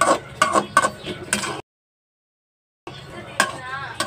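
Metal spatula clinking and scraping against a wok while stirring chicken livers in their sauce: four sharp clinks in the first second and a half. The sound then cuts out completely for about a second, and returns with one more clink and a brief warbling chirp.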